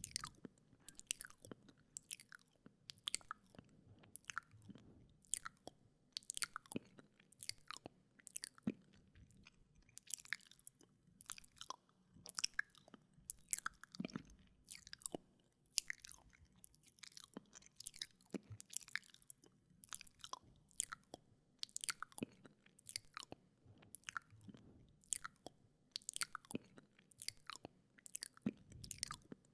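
Close-miked wet mouth sounds: tongue and lip clicks and smacks, several a second in an irregular stream.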